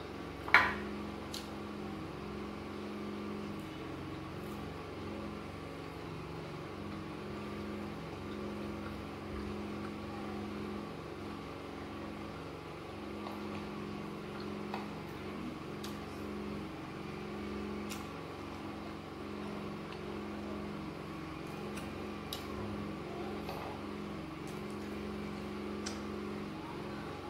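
A steady low machine hum with a held tone, and over it the small sounds of eating: a sharp click about half a second in, then scattered faint clicks and taps as fingers pick at fish and a spoon works in a glass bowl.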